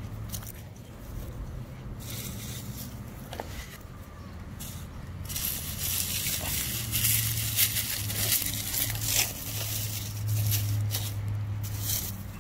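Dry rustling and crinkling that grows heavier and more continuous from about five seconds in, over a steady low hum.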